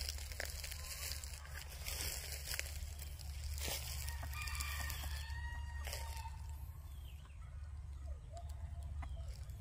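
Rooster crowing, faint, with a few sharp clicks and a steady low rumble underneath.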